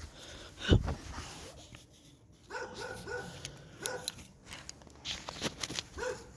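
Short high whimpering calls, several in a row, with sharp crackling clicks of a campfire and one heavy thump about a second in.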